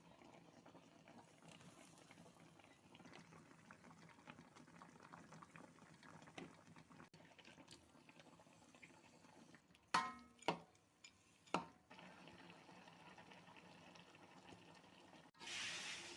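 Faint bubbling and crackling of sambal cooking in a pan, broken by three sharp metallic clanks about ten seconds in, and a louder sizzling hiss that starts near the end.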